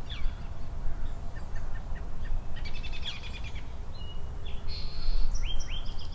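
Several birds calling and chirping: quick sweeping notes, a fast trill about halfway through and rising whistled calls near the end, over a steady low rumble.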